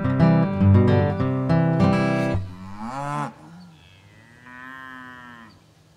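Strummed acoustic guitar music that stops about two seconds in, followed by cattle mooing twice: a loud moo that bends up and down in pitch, then a quieter, steadier one.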